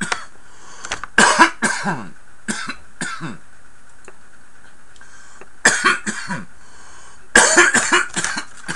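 A man coughing in several harsh fits, the longest near the end, after inhaling a dab of cannabis concentrate.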